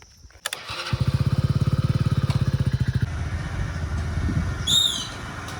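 A small engine starting up and running with a fast, even thudding, then settling into a steadier hum. A short falling chirp sounds near the end.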